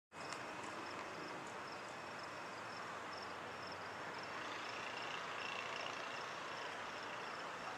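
Steady outdoor background noise with a short high chirp repeating about three times a second, and a brief lower trill around the middle.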